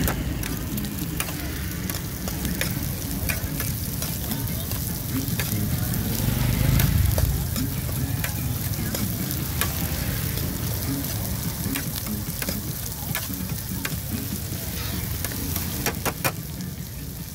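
Corn kernels sizzling as they are stir-fried in a large metal pan, with a metal spatula scraping and tapping against the pan. There is a quick run of sharp taps near the end.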